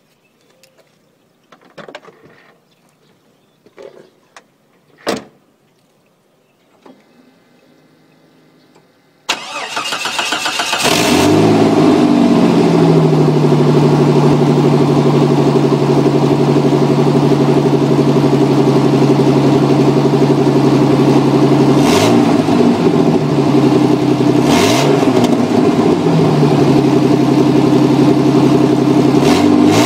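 A few clicks and knocks, then a 1989 Jeep Cherokee XJ engine is cranked and catches about ten seconds in. It settles into a loud, steady idle and is blipped briefly three times near the end, all with an exhaust leak at the down pipe.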